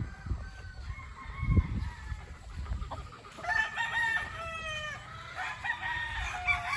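Young gamefowl stags crowing, several crows overlapping from about three and a half to five seconds in, and another near the end. A few low thumps in the first two seconds, the loudest of them the loudest sound here.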